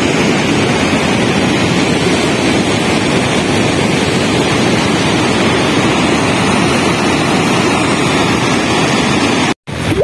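Muddy mountain river in flash flood, a steady loud roar of churning, rushing water. It breaks off abruptly near the end.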